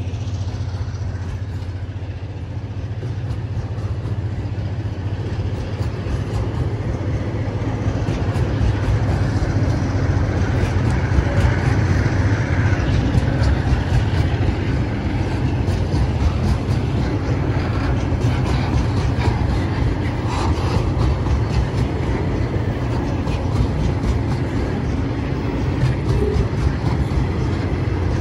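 Loaded log wagons of a freight train rolling past close by: a steady low rumble of steel wheels on the rails with a continuous rattle and clicking of wheels and couplings, getting a little louder partway through.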